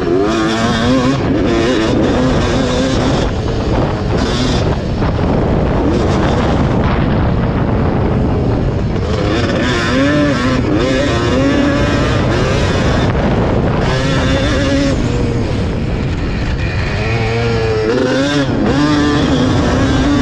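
Two-stroke single-cylinder engine of a 1991 Yamaha WR250 dirt bike, heard up close from on board under racing load, revving up and down again and again as the rider works the throttle and gears.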